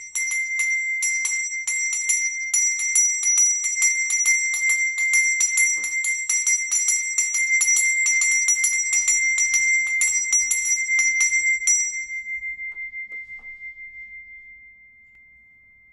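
A small high-pitched bell rung rapidly and unevenly, several strikes a second, for about twelve seconds. The strikes then stop and the single ringing tone fades out slowly over the last few seconds.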